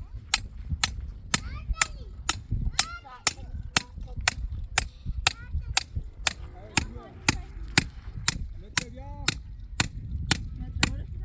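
Sharp clicks, evenly spaced at a steady two per second, with faint voices underneath.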